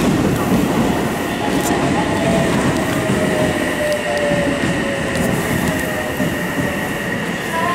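Electric commuter train pulling slowly into the station, the rumble of its wheels on the rails under a motor whine that falls slowly in pitch as it slows.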